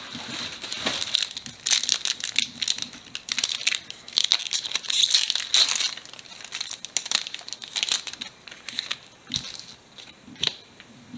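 Foil wrapper of a Pokémon card booster pack crinkling and tearing as it is opened by hand. The crackling is dense for about the first six seconds, then thins out to scattered rustles.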